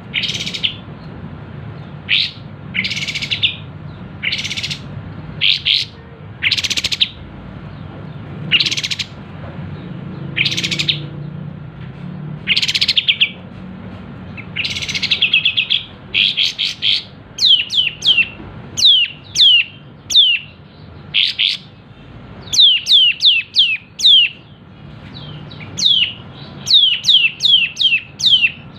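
Kapas tembak bulbul singing loudly: rough, chattering calls about every second or two, then, from about halfway, quick runs of sharp, falling whistled notes fired off several to a second.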